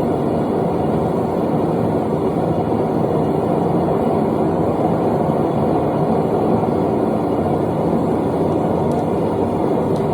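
A forge running with a steady, unbroken roar that stays even throughout.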